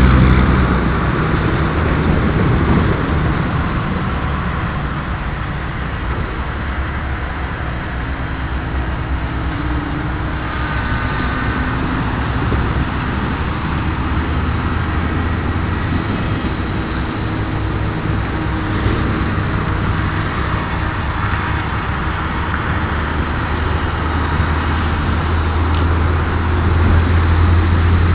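Airboat engine and propeller running steadily with a loud low drone, growing louder near the end.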